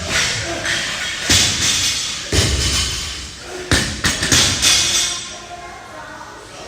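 A series of heavy thuds and bangs, about five in a few seconds, from equipment hitting the floor during a CrossFit workout, over background music.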